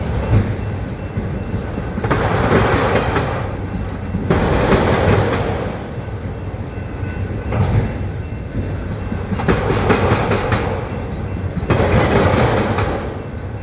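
Freight train cars rolling past, wheels clattering over the rail joints. The sound swells and eases every couple of seconds as each car's wheelsets go by.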